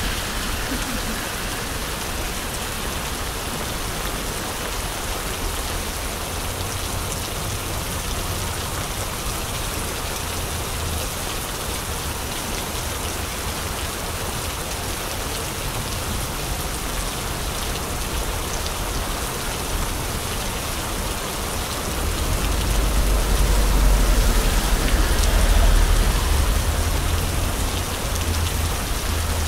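Steady rain pattering on an umbrella overhead and the wet street. About two-thirds of the way through, a low rumble of wind buffeting the microphone swells and grows louder.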